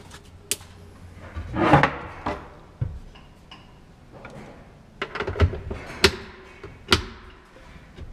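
Wooden cabinet door being handled and shut: one louder knock with a short ring about two seconds in, then several sharp clicks and taps spread through the rest.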